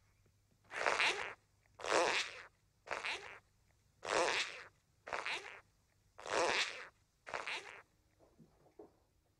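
Seven loud rasping creaks, about one a second, each lasting about half a second: an exaggerated comic sound effect dubbed onto each furtive step. A few faint taps follow near the end.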